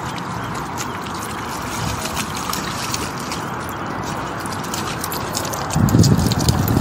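Water splashing and sloshing in a plastic paddling pool as a dog moves about in it, a steady dense splashing full of quick crackles. Near the end there is a louder, deeper rush of noise.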